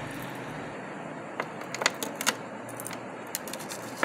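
Beaded and metal costume-jewellery necklaces clinking against one another and on the aluminium foil they lie on as they are handled and laid out: a scatter of sharp little clicks starting about a second and a half in, over a steady faint hiss.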